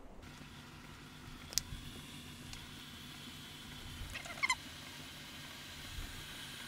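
Xiaomi Mi Smart Kettle Pro heating water toward the boil, drawing about 1,715 W. It makes a steady hiss with a sharp tick about a second and a half in, then a short burst of crackling pops around four seconds in.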